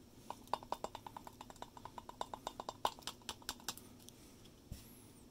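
Rapid run of light taps, about seven a second for some three seconds, as an instant-coffee sachet is tapped and shaken against a glass tumbler to empty the powder into it. A single soft thump follows near the end.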